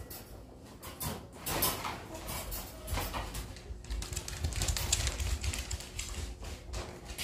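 A dog running across a hard floor: claws clicking and paws scuffling in quick, irregular patter, with dull thumps of footfalls, busiest in the middle and latter half.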